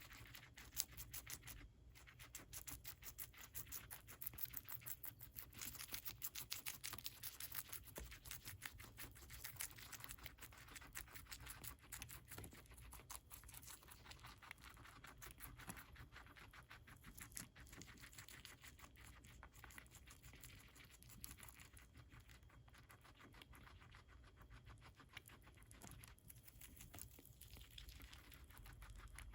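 Guinea pig chewing lettuce: a fast, continuous run of small crisp crunches, fainter in the second half.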